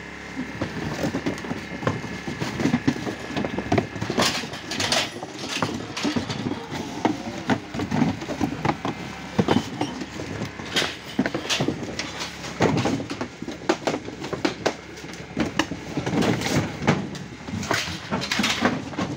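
Plastic bag liners crinkling and cardboard boxes being handled and knocked, an irregular clatter of crackles and thumps.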